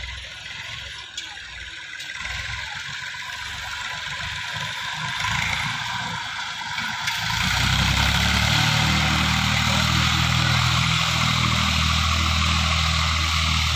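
Massey Ferguson MF240 tractor's three-cylinder diesel engine running under load while pulling a disc plough through the soil. Fainter and uneven at first, it becomes louder and steady about seven seconds in.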